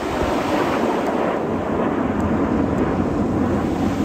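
Steady rushing jet noise of Red Arrows BAE Hawk T1 jets flying overhead in formation.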